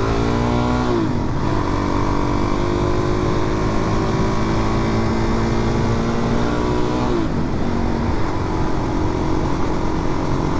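Suzuki DR-Z400's single-cylinder four-stroke engine running at cruising speed. The revs drop sharply twice, about a second in and again near seven seconds, and hold steady in between.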